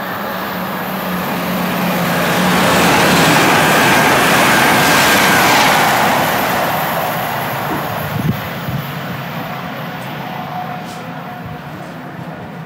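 Great Western Railway Intercity Express Train passing through a station at speed: the rush and rumble of the wheels on the rails swell to their loudest about three to six seconds in, then fade as it recedes. A brief knock about eight seconds in.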